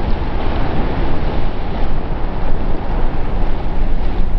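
Ocean surf rushing and breaking, with a strong low rumble underneath.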